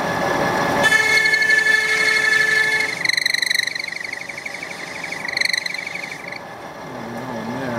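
Lathe grooving tool plunging into a spinning brass bar, setting up a high-pitched squeal about a second in that turns into a wavering, pulsing squeal about three seconds in and stops a little after six seconds, over the lathe's steady running.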